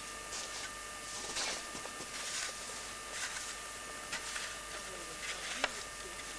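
Steady tape hiss with a faint constant whine from an old camcorder recording, with soft irregular crunches or rustles about once a second and one sharp click near the end.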